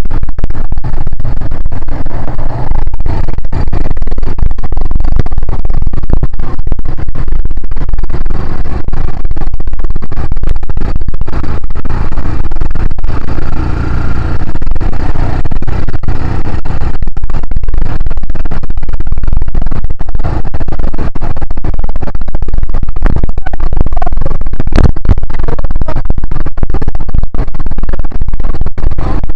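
Quad bike (ATV) riding over desert sand, heard from a camera on its handlebars: engine and wind noise overload the microphone into a constant, distorted rumble with many short knocks.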